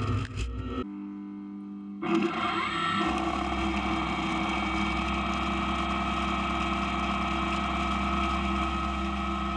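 Maho MH 600 E CNC milling machine running, its spindle turning: a steady machine hum and whine that dips briefly about a second in, then settles and holds.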